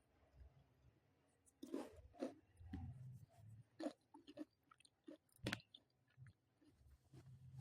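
Near silence with a few faint, scattered clicks and small knocks.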